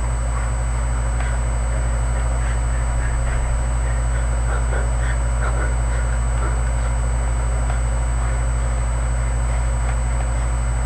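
Steady low electrical hum with a thin high whine, the noise floor of a webcam's built-in microphone, with faint scattered soft sounds over it.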